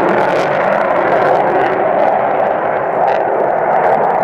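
Jet engine noise from a JASDF F-15 Eagle fighter flying past in a banking turn: a loud, steady rushing roar that holds even throughout.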